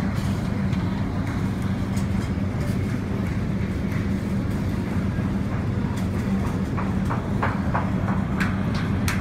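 Steady low mechanical hum of airport ramp machinery at a jet gate, with short clicks in the last couple of seconds.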